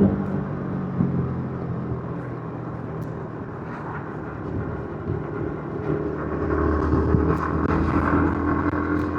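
Yamaha MT-15's 155 cc single-cylinder engine running through its stock exhaust while riding. The revs are low and quieter early on, then the engine pulls again, its note rising and settling from about six seconds in.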